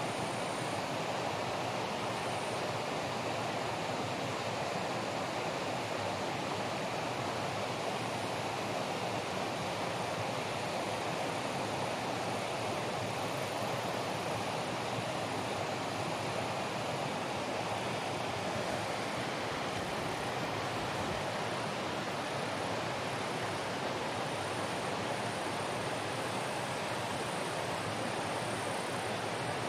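Steady rushing noise of water, even in level throughout, with a faint high-pitched sound coming and going above it.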